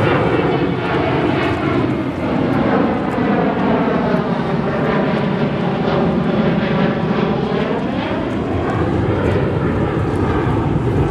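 Jet airliner passing low overhead: loud continuous engine noise whose whooshing tone sinks and then rises again as it goes over.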